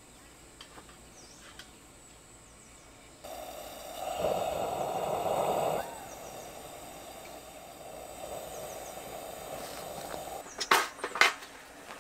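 Coleman gas lantern hissing as it is lit and burns: a louder rush of gas for about two seconds, then a steadier hiss. Near the end come a few sharp knocks.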